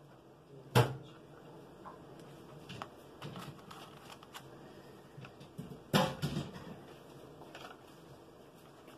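Handling noises from craft materials being worked on: a sharp knock about a second in, scattered light clicks and rustles, and a quick run of knocks around six seconds in.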